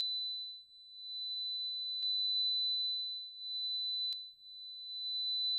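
A steady 4 kHz sine test tone from a small handheld speaker, heard in turn through a Shure Beta 87A condenser and a Beta 58A dynamic microphone. It fades sharply twice as the speaker is turned away from the microphones, and a short click falls about every two seconds.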